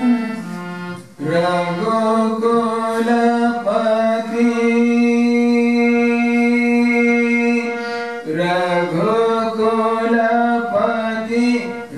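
A man singing a slow Indian devotional chant, accompanying himself on a harmonium, with one long held note in the middle.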